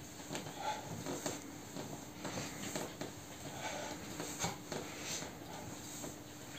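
Faint rustling of clothing and soft scattered knocks from a person doing squats, over a faint steady hum.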